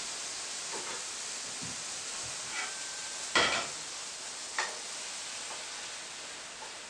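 Mushrooms sizzling in a frying pan with a steady hiss, while the pan is lifted and tipped over a saucepan. A sharp metal clank of pan and pot comes about three and a half seconds in and is the loudest sound, with lighter knocks shortly before and after.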